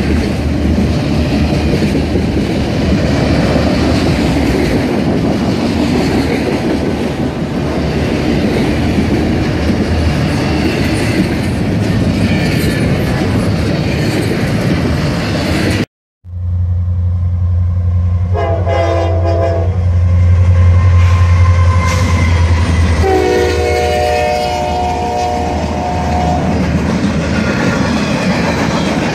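Freight train cars rolling past close by with a steady rumble and wheel clatter. After a brief cut to silence, another freight train passes with a steady low hum, and a locomotive horn sounds twice: a short blast and then a longer one.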